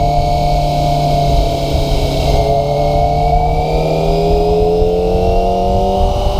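Kawasaki ZX-25RR's inline-four engine under way: its note eases down slightly, then climbs steadily over the last four seconds as the bike accelerates, with wind rumbling on the microphone.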